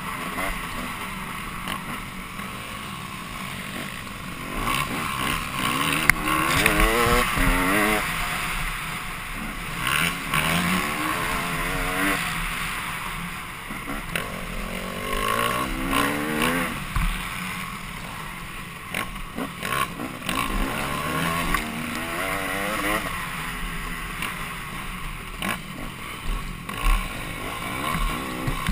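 Dirt bike engine revving up and dropping back again and again as the rider accelerates and shifts along a rough track, with occasional knocks from the bike over the ground.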